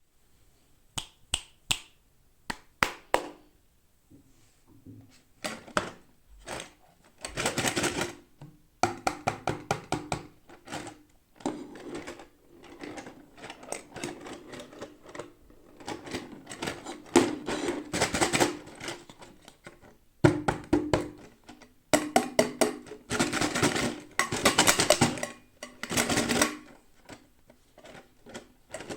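Plastic toy packaging being handled and opened: a run of sharp clicks and taps, then repeated bouts of crackly crinkling and clicking that come and go.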